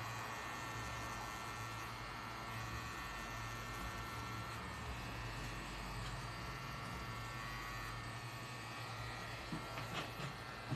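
Pen-style tattoo machine buzzing steadily as it needles ink into skin, with a few light knocks near the end.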